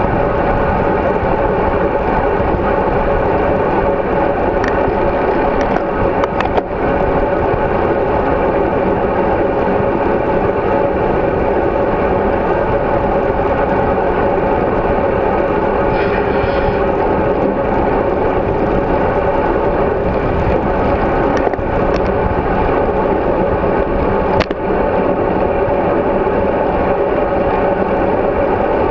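Steady rush of wind and road noise on a GoPro Hero3 riding along on a moving bicycle, with a couple of sharp knocks, one about a quarter of the way in and one near the end.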